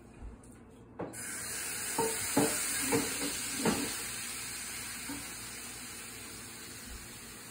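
A hot frying pan hissing and sizzling. The sizzle starts suddenly about a second in and slowly dies away. A handful of clinks and knocks of a utensil come between about two and four seconds in.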